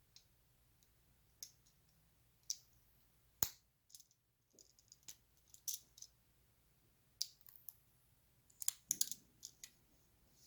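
Irregular sharp clicks and light taps of small plastic parts and packaging being handled, with one firmer knock a little over three seconds in.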